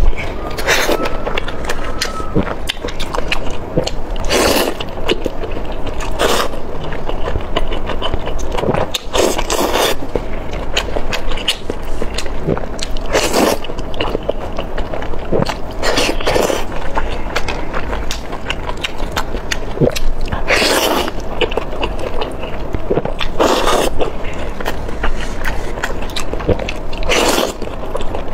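Eating sounds: wet chewing, biting and slurping of chopped-chili oysters taken off skewers, with a sharper, louder slurp every two to four seconds.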